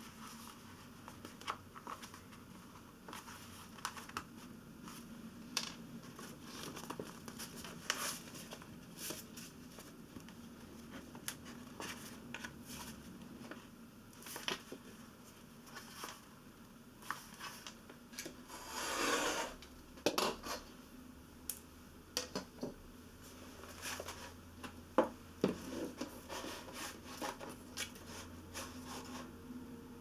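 Soft handling sounds of hand-sewing a book: thread drawn through folded paper signatures and pages rustling, with scattered light taps and scratches and one longer rasp about two-thirds of the way through.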